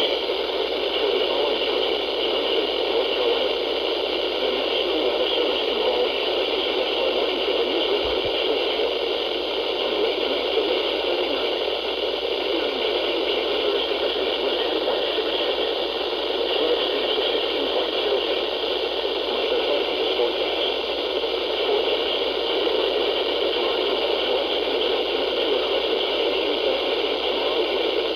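Steady radio static: a weather radio receiver hissing with no broadcast voice coming through.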